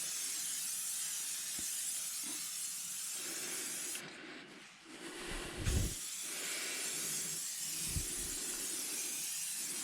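Aerosol can of SC1 detailer spraying in a steady hiss. It stops for about a second and a half around four seconds in, and a low knock comes just before it starts spraying again.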